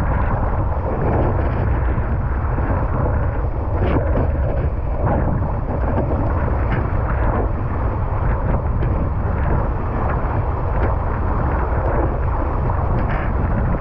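Wind buffeting a rig-mounted action camera's microphone in a steady low rumble while a windsurf board planes over choppy water, with irregular splashes and slaps of chop against the board.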